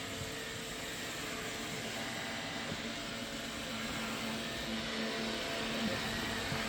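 iRobot Roomba robot vacuum running: a steady whirring hiss from its suction fan and brushes, with a faint hum underneath.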